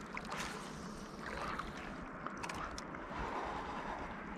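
Water sloshing and lapping against a float tube as it moves on a river, with a few faint ticks about two and a half seconds in.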